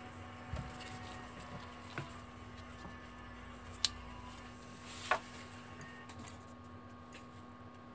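Small clicks and taps of phone parts being handled and fitted: plastic frame pieces and a circuit board moved on a mat, with a sharp click about 4 s in and another about 5 s in. A faint steady hum runs underneath.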